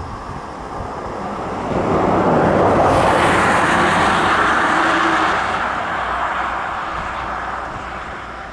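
A road vehicle passing close by: a rush of noise that swells up over a couple of seconds, holds, then slowly fades away.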